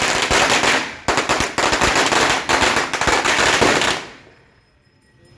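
String of firecrackers going off in a rapid, dense crackle of pops. A short break about a second in, then the pops resume and stop about four seconds in.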